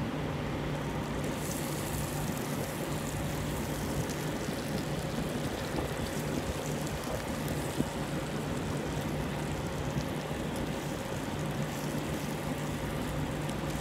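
Steady low hum of an idling diesel engine with a broad, even hiss over it, unchanging throughout.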